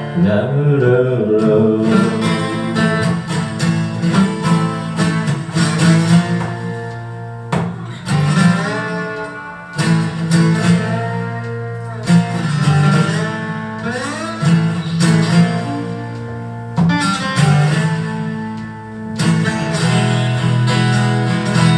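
Acoustic guitar playing an instrumental passage of a song, with a melody line that slides between some of its notes.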